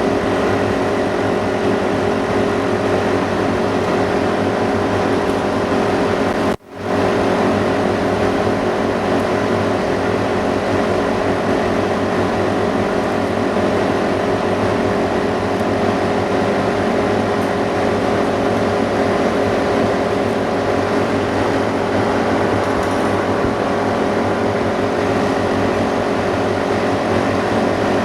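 Steady machine hum with several constant tones from refurbishing-room equipment: the filtered ventilation fan of a dust-free room and a laminating machine's built-in pump. It cuts out for a split second about six and a half seconds in.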